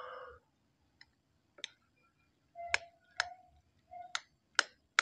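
A metal utensil clinking against a ceramic bowl while cooked rice and egg yolks are stirred together: sharp, irregular clinks, about seven in all, a few followed by a brief ring from the bowl.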